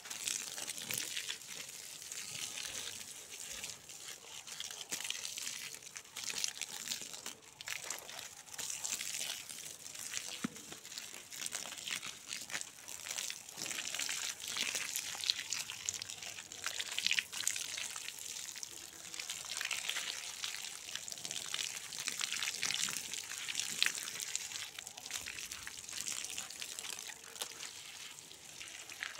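Water from a garden hose pouring and splashing onto soil and plants: a steady hiss with frequent small splashes.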